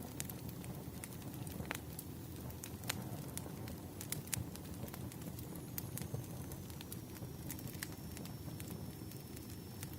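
Firewood burning: irregular sharp crackles and pops, several a second, over a steady low rush of the flames.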